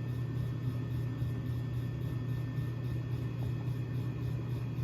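A 1938 Emerson round nose ceiling fan running steadily at a reduced voltage. Its motor gives a low, even hum over a rush of moving air.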